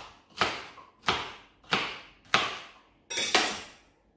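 Baccarat Damashiro kitchen knife chopping a celery stalk on a cutting board: four even knocks, about one and a half a second, each with a short ring. Just after three seconds the chopping stops with a longer, noisier sound.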